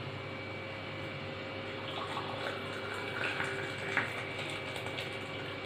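Hot spiced milk poured from a pan into a glass, with a light clink about four seconds in.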